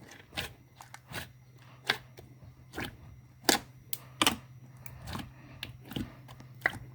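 Clear slime being squished and worked by hand, giving irregular sharp clicks and pops, roughly two a second.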